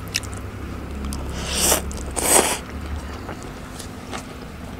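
Slurping a chopstick-load of noodles and rice vermicelli into the mouth, close to the microphone: two loud slurps near the middle, with soft chewing and mouth clicks around them.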